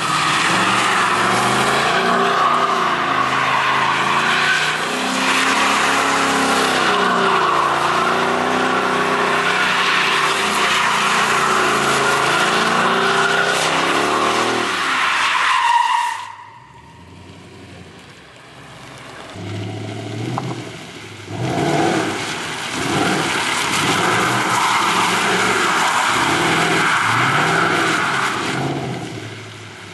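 Ford Mustang V8 revving hard with the rear tyres spinning and squealing as it drifts round on wet tarmac. About halfway through the sound drops away abruptly. It comes back as a string of rev-and-squeal pulses, a little over one a second.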